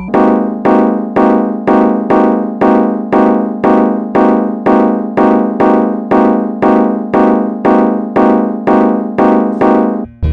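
A fire alarm sounding in march time: a rich pitched tone pulsing about twice a second, each pulse starting sharply and fading quickly. Just before the end it switches to a different alarm pulsing at the same rate.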